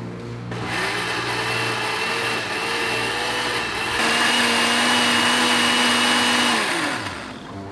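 Electric countertop blender running, pureeing chopped sponge gourd (luffa), with a steady motor whine. About four seconds in it gets louder, and near the end the motor spins down and stops.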